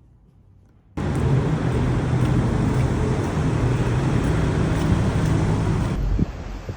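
A loud engine running steadily with a low hum, starting abruptly about a second in and dropping away near the end.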